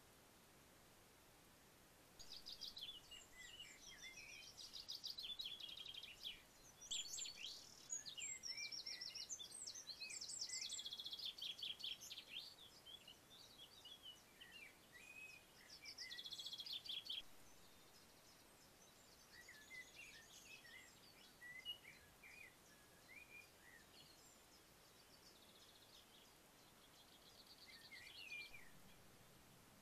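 Wild songbirds singing in phrases of rapid, trilled notes, starting about two seconds in, loudest through the first half and then fainter, sparser calls over a faint outdoor hiss.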